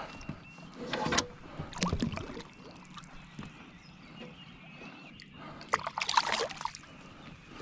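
A few sharp knocks of handling on the kayak, then a splash about six seconds in as a largemouth bass is let go into the water beside the kayak.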